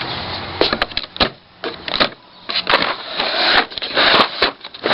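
Metal sockets and tools clinking and clattering while a deep-well socket is picked out: a string of sharp clicks and knocks, with a rattling rustle about three seconds in.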